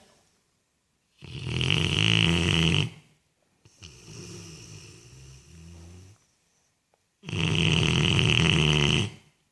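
Dog snoring in its sleep: two loud snores, one about a second in and one about seven seconds in, each nearly two seconds long, with softer snoring breaths between them.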